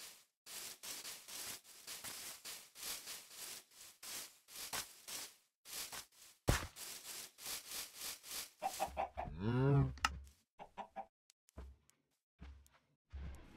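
Animal calls: a rapid run of short, sharp calls, about two or three a second, then one long call that rises and falls in pitch about nine seconds in, followed by a few scattered clicks.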